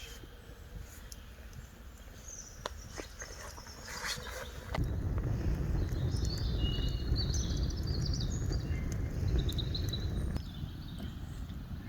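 Woodland birds singing, with scattered sharp taps. A loud low rumble of wind on the microphone comes in about five seconds in and drops away about five seconds later.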